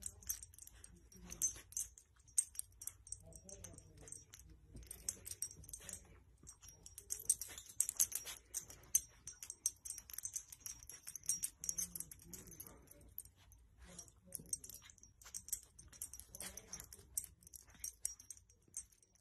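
Soft rustling of a fleece blanket and small irregular clicks and jingles as a dog noses and tugs at it, its collar tag tapping; busiest in the middle.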